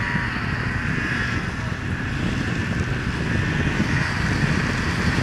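Snowmobile engine running steadily in the distance, with wind on the microphone.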